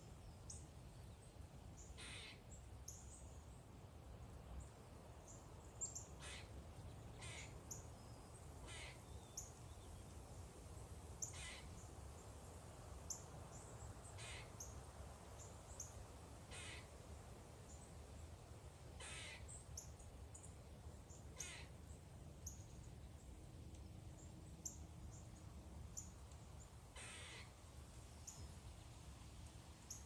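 Birds calling: a short, harsh caw about every two to three seconds, with brief high chirps of small birds in between.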